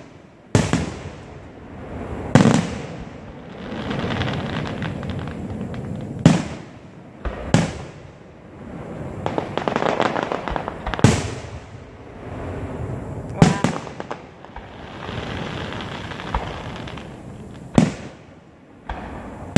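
Aerial firework shells bursting, about eight sharp bangs spaced two to four seconds apart, with stretches of crackling between the bursts.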